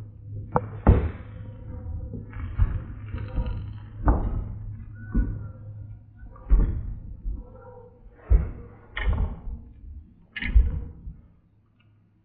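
Irregular knocks and thuds, about a dozen short impacts a second or so apart, over a steady low hum.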